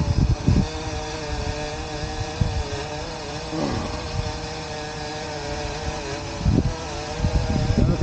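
Parrot Anafi quadcopter's propellers humming steadily overhead, the pitch wavering as it holds against strong wind, with a brief dip and rise in pitch about three and a half seconds in. Wind gusts buffet the microphone, loudest at the start and again near the end.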